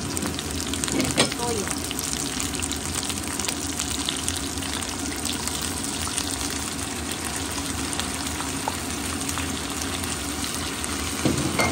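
Eggplant, onion and garlic sizzling in hot oil in a frying pan, a steady crackle throughout.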